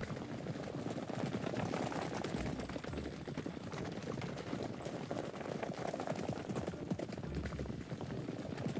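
Hooves of several wild horses running over dry ground, a rapid, overlapping jumble of hoofbeats with no clear single rhythm.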